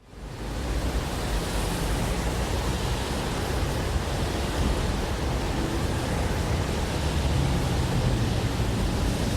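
City ambience recording: a steady, dense wash of noise with a deep low rumble and no distinct single events, fading in at the start and out at the end.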